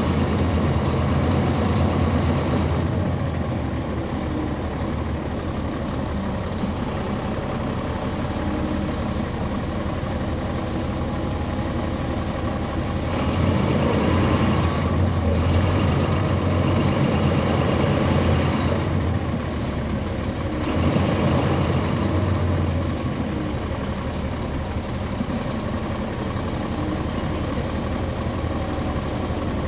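A NABI 40-SFW transit bus's Caterpillar C13 diesel engine and ZF Ecomat six-speed automatic transmission, heard from the rear seats over the engine. The engine runs through quieter stretches and louder pulls under load near the start, across the middle and briefly about two-thirds through. A rising transmission whine comes in about halfway through as the bus accelerates.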